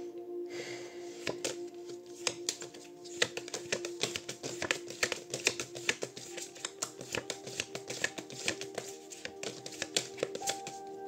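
A deck of tarot cards being shuffled by hand: a quick, irregular run of card clicks and flicks, over soft background music with long held notes.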